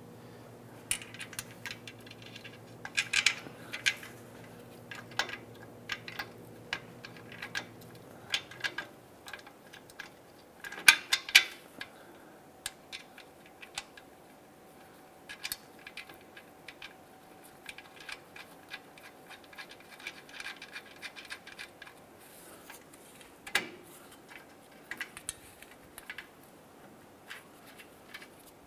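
Exhaust flange bolts and nuts being fitted by hand at a catalytic converter joint: scattered small metallic clicks, taps and scrapes of the hardware, with louder clusters about three and eleven seconds in. A low steady hum underneath stops about eight seconds in.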